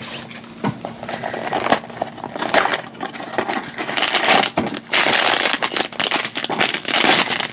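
A cardboard blind box being torn open by hand, then the foil bag inside crinkling as it is handled, the crinkling loudest in the last two or three seconds.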